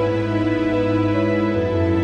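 Calm, slow piano background music with held notes changing every half second or so.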